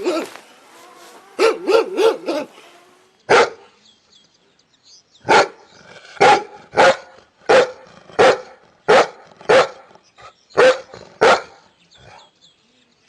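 A dog barking: a quick burst of several barks, a single bark, then a steady run of about nine loud barks, roughly one every two-thirds of a second.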